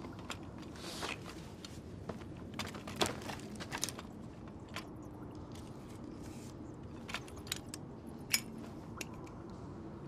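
Scattered faint clicks and crunches over a low background, with a few sharper ticks about three, four and eight seconds in.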